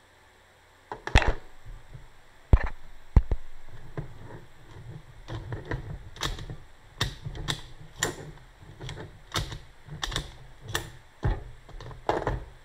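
Sharp clicks and knocks from a Honda ignition lock and switch assembly being worked with its key and handled on a metal bench. A few loud knocks come about a second in, then a run of clicks at roughly two a second.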